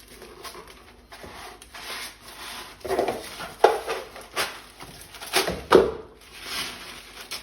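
Packaging being handled during unboxing: irregular rustling of cardboard and wrapping with several sharp knocks and scrapes, loudest about three to six seconds in.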